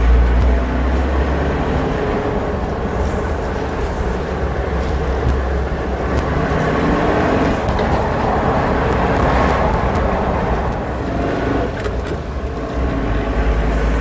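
Suzuki Jimny being driven, its engine running steadily with a deep continuous road rumble.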